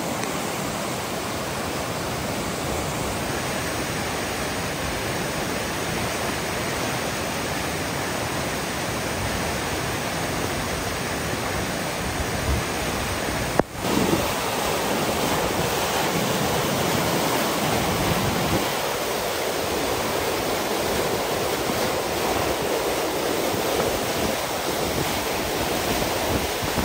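Muddy floodwater rushing steadily down a normally dry creek bed in a flash flood. There is a brief break about halfway through, after which it is a little louder.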